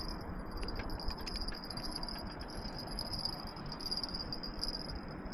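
Steady high-pitched trill of insects, with a few short breaks near the end, over a low background rumble. Faint clicks and rattles of fishing tackle being handled come through now and then.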